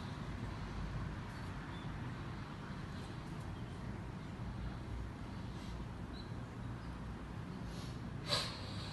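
Steady low room hum and hiss with no voice, and a single short click or knock near the end.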